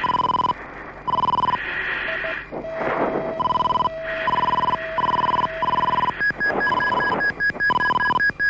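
Mirage 2000 cockpit warning alarms during a gear-up landing: a half-second beep repeating on and off, a lower steady tone held for a few seconds in the middle, and from about six seconds in a faster, higher beeping that joins it.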